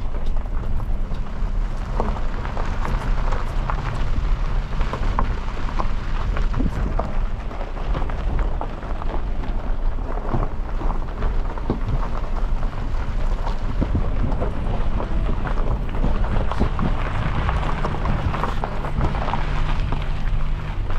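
A car driving on a rough unpaved road: a steady low engine drone under a constant noise of tyres on gravel, with many small knocks and rattles.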